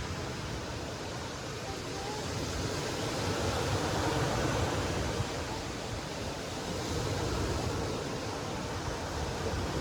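Ocean surf washing ashore, a steady rush that swells and eases a little.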